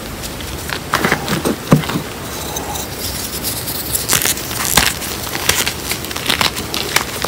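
Bare hands digging into and squeezing a bowl of powdered gym chalk mixed with cornstarch and chunk chalk. The result is soft crunching and crumbling, with irregular sharp crackles as the lumps break apart.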